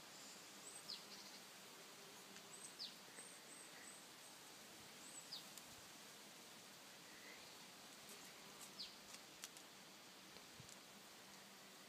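Near silence of an outdoor garden, with a few faint, short high chirps of small birds scattered through it and some faint clicks about two thirds of the way through.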